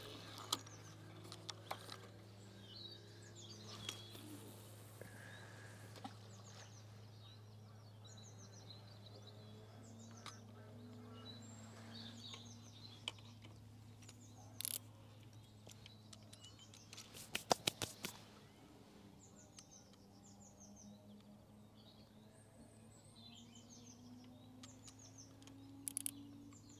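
Small birds chirping and singing on and off over a faint steady low hum. A few sharp clicks from fishing tackle being handled, with a quick run of them a little past the middle.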